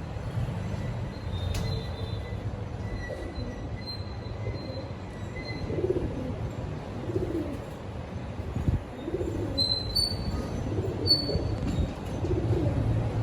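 Birds calling, with short high chirps and lower, curving calls, over a steady low rumble.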